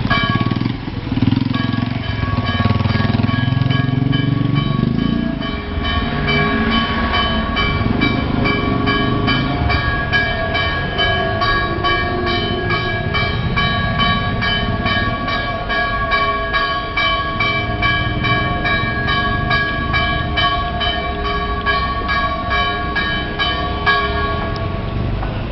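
Church bells ringing, struck rapidly about three times a second, with their tones ringing on over one another. The ringing stops near the end. A low rumble sits underneath, heaviest in the first few seconds.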